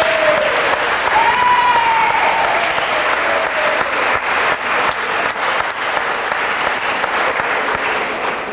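Audience applauding steadily, with a high voice calling out over the clapping in the first two seconds.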